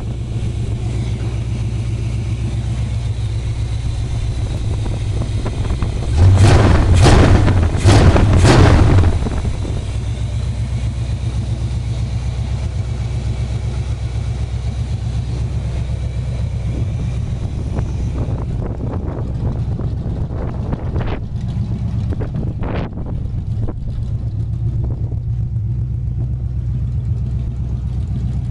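1984 Chevrolet pickup's V8 idling steadily with the radiator cap off, warming up so the antifreeze circulates. It is revved briefly twice about six to nine seconds in, and two sharp clicks come later.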